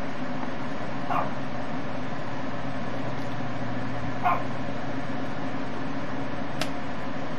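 Steady hiss and hum of a pot of water at a rolling boil on a high flame, with a couple of brief short sounds and one sharp click near the end as chopsticks stir the noodles against the aluminium pot.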